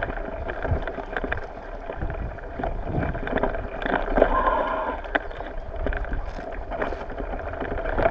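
Touring bicycle rolling over bumpy grass: a steady rumble with frequent rattles and knocks from the frame and the loaded panniers.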